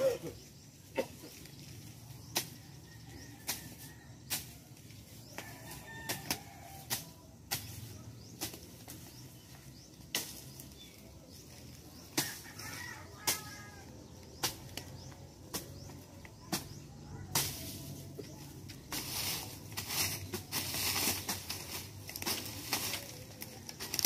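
Dry leaf litter and stalks being pulled aside by hand, crackling and rustling with many sharp snaps, thickening into continuous rustling in the last few seconds.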